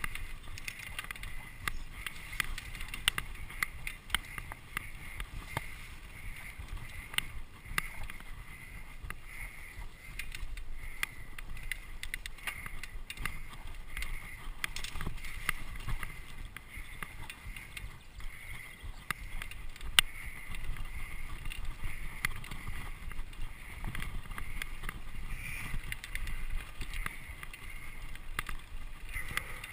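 Mountain bike riding fast over dirt single track: frequent clicks and rattles from the bike on the rough ground, over a low wind rumble on the microphone, with one sharper knock about two-thirds through.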